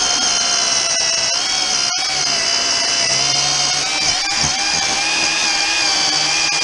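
Worx WG322 20V cordless electric chainsaw cutting through a log, its motor running under load with a steady high whine.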